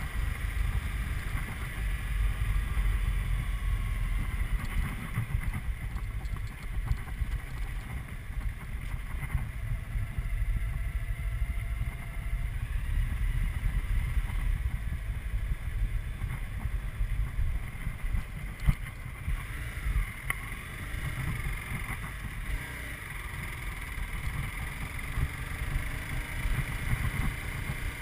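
Low, steady wind and road rumble on the camera microphone of a Honda CBR250R motorcycle under way, with the bike's single-cylinder engine running underneath it.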